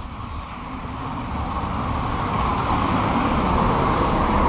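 Road traffic on a wet street: a vehicle approaching, its tyre and engine noise growing steadily louder.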